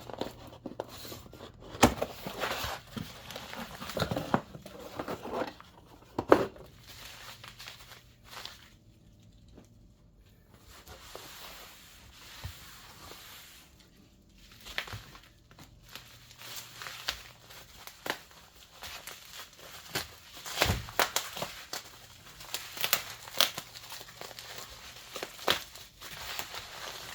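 Packaging being crinkled and torn open to unwrap new camshafts: irregular rustling with sharp crackles. It goes quieter for a few seconds in the middle, then picks up again.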